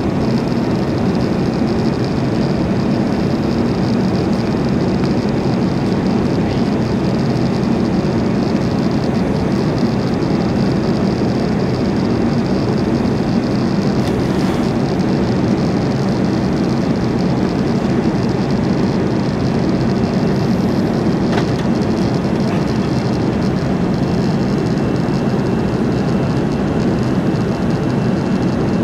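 Steady cabin noise of an Airbus A330-300 in flight shortly after takeoff: the jet engines and rushing air, a deep even drone with a faint high hiss over it.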